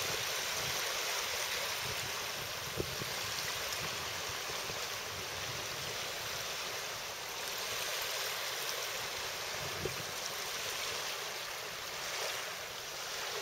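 Steady rushing wash of water on open, choppy water, with two faint knocks, one about 3 seconds in and one near 10 seconds.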